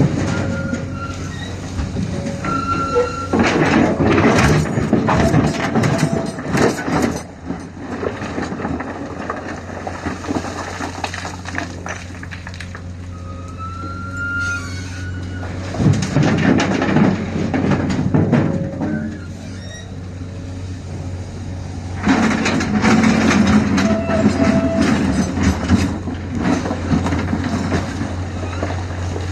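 Heavy diesel machinery running steadily while an excavator loads river material into a truck, with three louder spells of rattling noise: near the start, midway and in the last third. A few short high squeals come between them.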